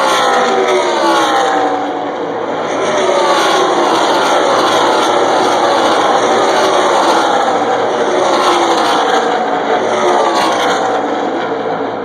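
NASCAR Camping World Truck Series race trucks' V8 engines at full throttle, passing one after another in a pack, each engine note falling in pitch as it goes by. The passes overlap into a loud, continuous racket.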